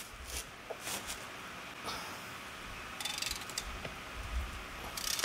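Socket-wrench ratchet clicking as it is worked back and forth on a stubborn, very tight bolt on an outboard lower unit. There are scattered single clicks and a quick run of clicks about three seconds in.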